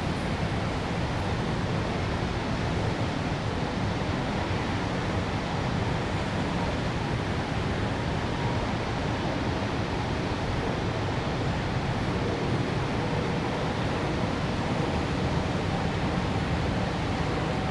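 Steady city ambience: an even, unbroken wash of urban noise, heaviest in the low range, with no distinct events.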